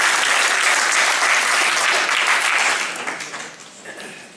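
Audience applauding, a dense clapping that thins out and dies away over the last second and a half.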